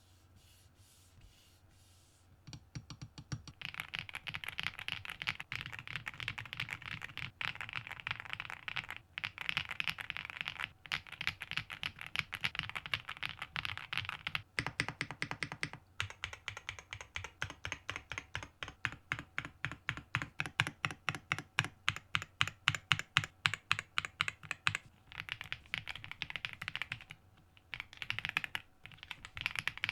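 Typing on a WOBKEY Rainy 75 mechanical keyboard with Kailh Cocoa switches, set on a bare desk without a deskmat. Quiet for the first couple of seconds, then fast, continuous keystrokes, with a stretch of evenly spaced, louder single key presses midway and a few short pauses.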